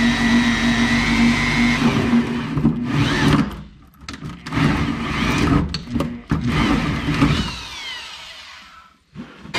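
A hand drill cuts a 3.5-inch hole through the pickup's steel bed floor with a hole saw. It runs steadily for the first two seconds, then starts and stops in short runs as the cut finishes. It winds down with a falling whine about eight seconds in.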